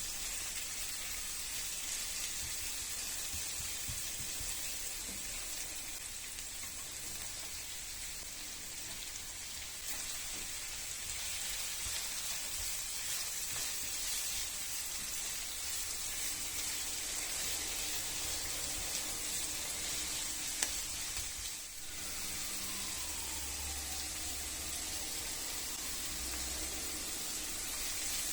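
Food sizzling steadily in a hot pan, with a brief break about three-quarters of the way through.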